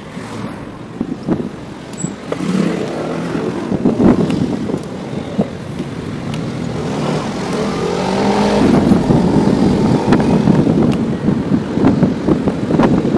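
Street traffic heard from a moving bicycle: car and motor scooter engines running close by, one rising in pitch as it pulls away around the middle. Wind rushing over the microphone grows louder toward the end.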